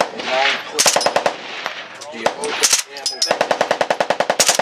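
Suppressed Heckler & Koch MP5-pattern submachine gun firing on full auto: a few short bursts, then a longer burst of about a dozen shots a second from about three seconds in.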